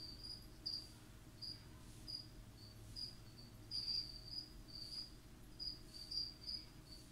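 Cricket chirping: short, high chirps at one steady pitch, about two a second and unevenly spaced, faint over a low steady hum.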